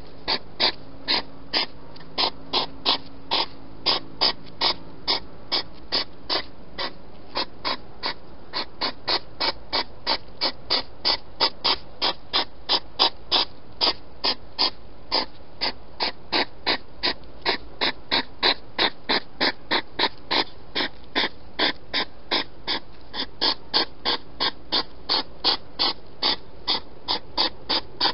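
Hedgehog chewing food, a rhythmic crunching and smacking about three times a second with a few short pauses.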